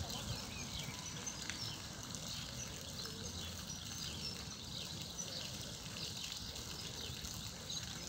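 Outdoor ambience: small birds chirping and twittering faintly throughout, over a steady low background rumble.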